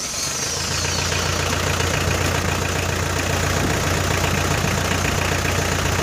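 Mitsubishi 4D56 four-cylinder diesel engine idling steadily just after starting, with a high whine falling away in the first second. It started readily and runs evenly once the air has been bled out of the fuel line.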